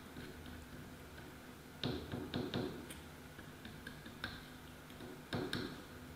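A few light clicks and taps, several of them in quick pairs, over a faint steady hum.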